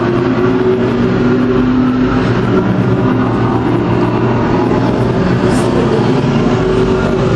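Race cars' engines running at speed around an oval track, several engines overlapping in a steady, loud mix.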